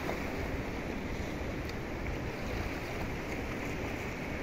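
Steady rushing noise of sea surf, with a low rumble of wind on the microphone.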